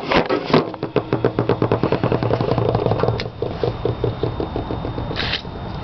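Datsun 280ZX's 2.8-litre straight-six being cranked by the starter after a shot of brake cleaner as starting fluid, turning over with a fast, even beat but not catching in a cold no-start; the beat slows after about three seconds. A short hiss near the end.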